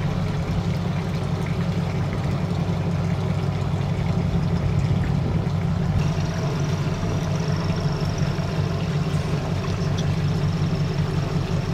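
Motor yacht's inboard engines idling steadily, a low drone, with a faint high-pitched whine joining about halfway through.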